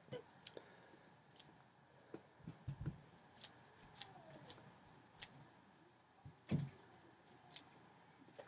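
Quiet room tone with a scattering of faint short clicks and a few soft knocks, the loudest knock about six and a half seconds in.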